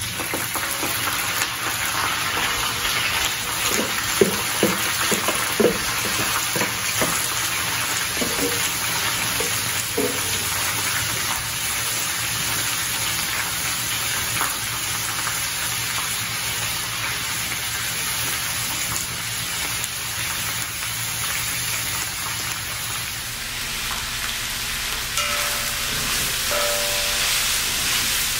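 Sliced bell peppers and onions sizzling in hot grapeseed oil in a discada; the sizzle starts suddenly as they hit the pan and stays steady and loud. There are a few knocks in the first ten seconds, and near the end a wooden spatula stirs them.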